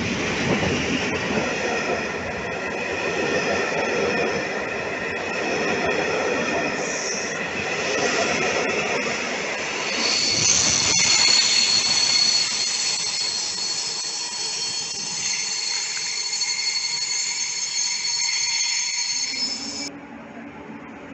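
EU07 electric locomotive and its passenger coaches rolling slowly past at close range as the train arrives, with a steady high squeal from the train's wheels growing stronger from about halfway through. Shortly before the end the sound drops abruptly to a quieter hum.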